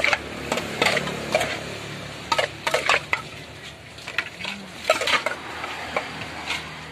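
Metal serving spoon scraping and clinking against an aluminium pot as dressed meat salad is scooped out and dropped onto a plate, in irregular knocks and scrapes.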